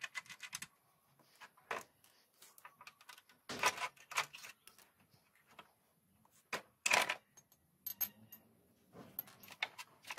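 Metal clicks and clanks from taking off a Honda Shine's front wheel: a spanner on the axle nut and the steel axle and hub parts knocking as they are worked loose. Two louder clattering bursts come about four seconds in and again near seven seconds.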